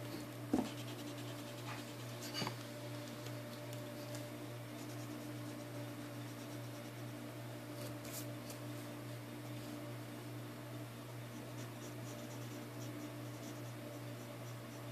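Mechanical pencil scratching lightly on paper as sketch strokes are drawn, over a steady low hum. A sharp knock sounds about half a second in.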